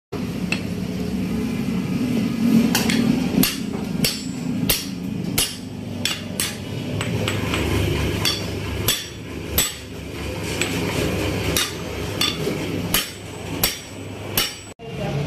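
Hammer blows on a steel motorcycle crankshaft, driving the crank pin home in the flywheel half. About twenty sharp metallic strikes come at an uneven pace of one to two a second, over a steady low hum.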